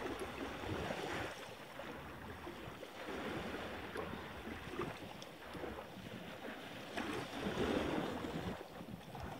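Wind buffeting the microphone over the wash of small waves against a rocky shore, an uneven rushing noise that swells a little near the end.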